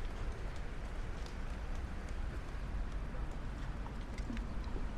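Town street ambience: a steady low rumble with faint, scattered clicks and taps over it.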